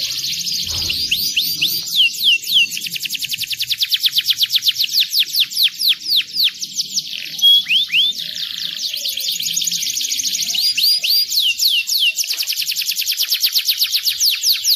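Domestic canary singing a long, unbroken song of fast trills: runs of rapid falling whistled notes, about ten a second, with a few slower, louder down-slurred notes mixed in.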